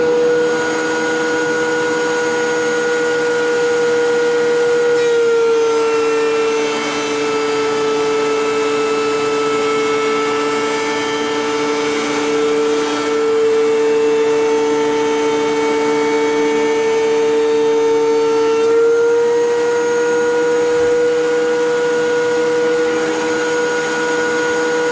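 An electric power tool's motor running at a steady high whine. Its pitch sags slightly about five seconds in and holds lower for roughly fourteen seconds, the tool under load as it works through a board, then climbs back to free-running speed.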